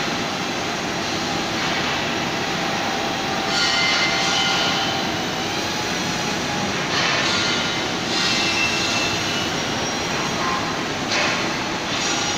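Flytec T18 mini quadcopter's small motors and propellers buzzing steadily in flight, with a thin whine, growing brighter several times for a second or two as it is steered.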